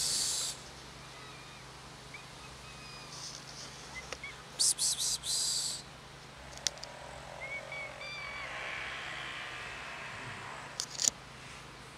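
Black stray cat meowing several times, faint short calls and one longer call toward the end, begging for food out of hunger. Louder over it are a person's sharp 'psst, psst' hisses calling the cat, in a short run about five seconds in and a quick pair near the end.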